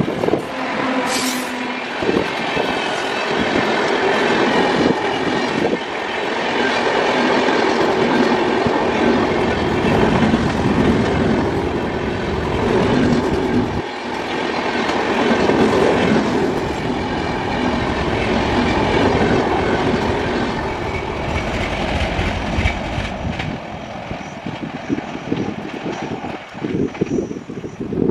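Express train passing at speed behind an electric locomotive: a continuous rumble and rattle of steel wheels on rails as the coaches run by, easing off a little near the end as the train moves away.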